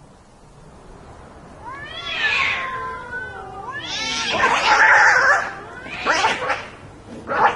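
Cats fighting: a drawn-out yowl that wavers up and down in pitch starts about two seconds in, followed by loud, harsh screeching bursts near the middle and again near the end.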